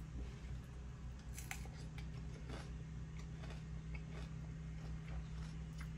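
Quiet room tone with a steady low hum and a few faint, soft clicks.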